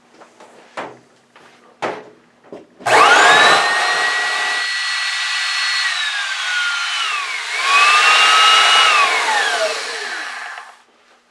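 A few clicks, then the Oreck XL upright vacuum cleaner's motor starts with a rising whine and runs. It winds down, starts up again briefly, then winds down to a stop: the motor runs again now that its failed protection circuit board is bypassed.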